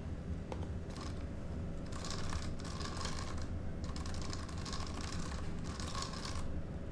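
WLtoys 124018 1/12 RC buggy handled and rolled by hand on a tabletop: rapid clicking and rattling from the truck in two spells of a second or two each, starting about two seconds in and about four seconds in, with a faint whine under the clicks.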